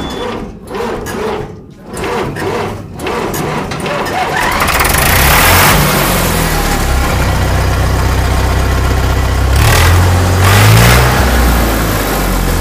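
A Sonalika DI 750 III tractor's diesel engine being started: a few seconds of uneven cranking, then it catches about four seconds in and runs steadily. It is revved up briefly twice, once just after catching and again near the end.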